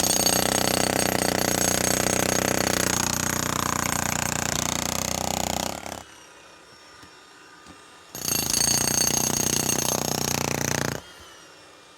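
Jackhammer breaking up a concrete slab: a long burst of rapid hammering lasting about six seconds, a pause of about two seconds, then a second burst of about three seconds.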